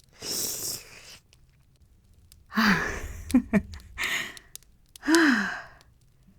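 A woman's wordless breaths and sighs: a breathy inhale, then several short moans falling in pitch, with faint mouth clicks between them, as the vampire character savours the blood she has been drinking.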